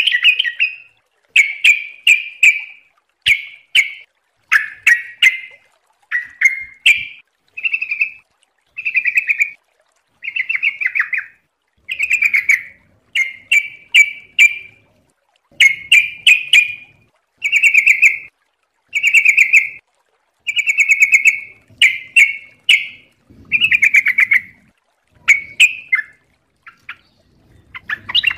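Yellow-vented bulbul (trucuk) singing a long series of short warbled phrases, about one a second, with brief pauses between them.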